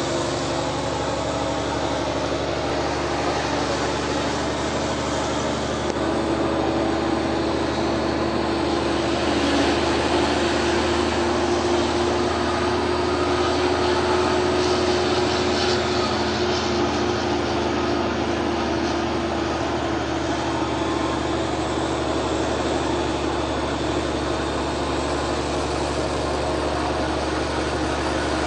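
Diesel engine of a semi-truck pulling a heavily loaded double-trailer tanker up a long mountain grade, heard from inside the cab as a steady, loud drone. A steady whine joins in about six seconds in and fades away after about twenty seconds.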